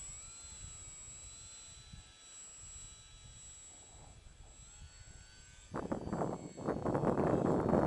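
Steady high whine of a small flying craft's motor, stepping up in pitch twice, over a low rumble. About six seconds in, strong wind gusts start to buffet the microphone loudly.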